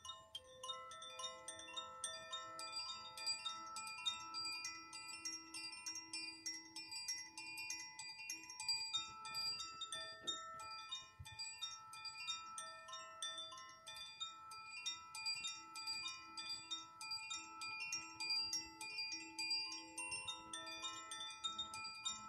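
Metal chimes struck in a quick, continuous patter, several strikes a second, each leaving bell-like tones ringing at different pitches and overlapping.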